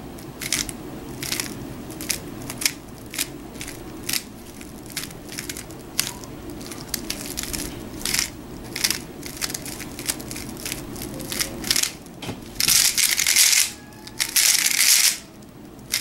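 Plastic 3x3 speed cube (Aolong v2) being turned by hand through a G-perm algorithm: separate clicking layer turns, a few a second, then near the end two short bursts of rapid turning as the algorithm is run at speed.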